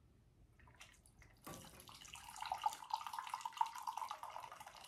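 A few faint clicks, then liquid poured from a thermos into a mug, starting about a second and a half in and splashing steadily until it stops at the end.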